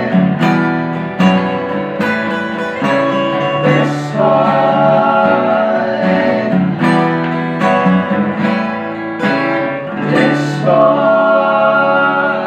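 Acoustic trio: three men sing together while strumming three steel-string acoustic guitars. Near the end they hold a long sung note over a strummed chord as the song closes.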